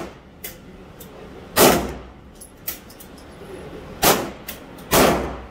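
Pistol shots in an indoor range: three loud shots, each with a short echo, about a second and a half, four seconds and five seconds in. Fainter sharp cracks in between.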